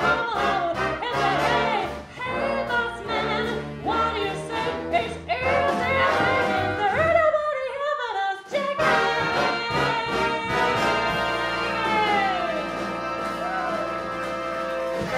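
Live big band of saxophones, trumpets and trombones, with a female singer, playing the closing bars of a swing jump-blues number. Busy ensemble playing gives way about halfway through to a falling glide, then a long held final chord that cuts off at the end.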